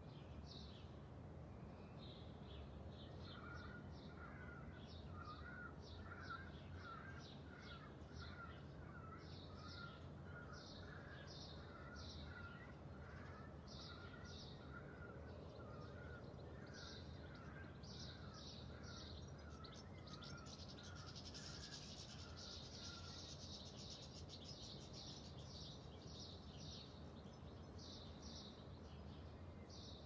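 Faint outdoor birdsong and calls from more than one bird. Short high notes come in quick groups throughout, and from about three seconds in until past twenty seconds a lower bird repeats a rapid run of notes. A steady low rumble lies underneath.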